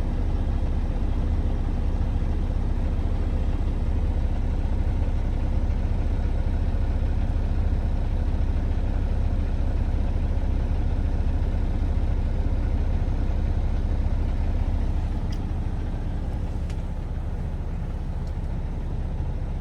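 Semi-truck diesel engine idling, heard from inside the cab as a steady low hum.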